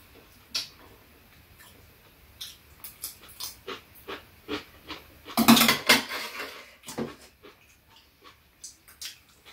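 Metal chopsticks and a metal spoon clicking and scraping against dishes on a metal tray as two people eat, in scattered short ticks. A louder, longer noise comes about five and a half seconds in.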